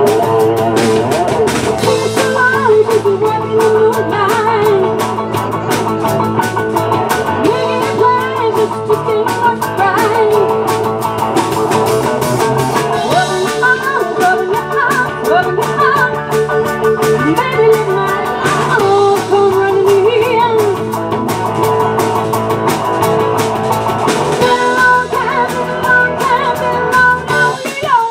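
Live rock band playing: a woman singing lead over electric guitars, keyboard and drum kit.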